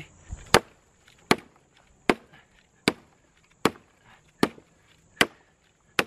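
Small axe head of a folding survival multi-tool chopping a thin branch: a steady run of sharp chops, a little under one a second.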